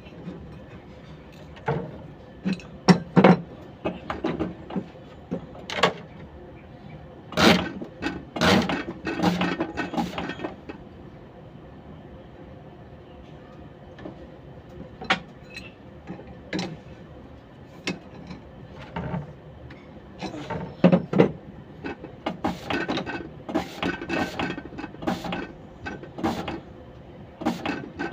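Clusters of sharp metallic clicks, clinks and knocks from hand tools and metal engine parts being handled, with a quiet spell of a few seconds midway.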